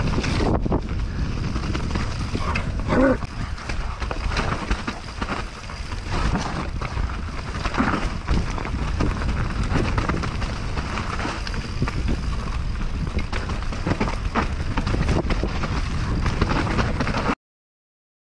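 Mountain bike ridden fast down a dirt forest trail: tyres rumbling over dirt, roots and leaves, and the bike rattling and knocking over bumps, with wind on the microphone. It cuts off abruptly near the end.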